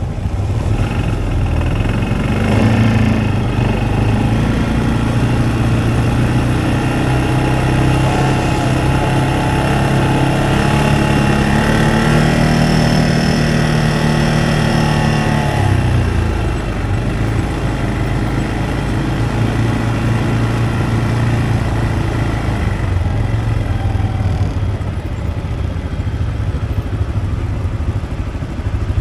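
A vehicle engine running under load. Its pitch climbs slowly for over ten seconds, then drops about halfway through as the throttle eases, and it runs on more steadily after that.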